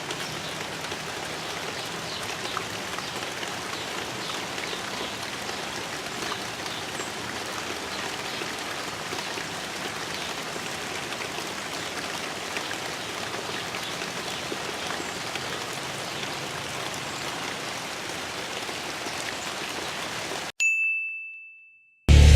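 Steady rain falling, with a few faint drop ticks. About twenty seconds in it cuts off abruptly and a single high ding rings out and fades.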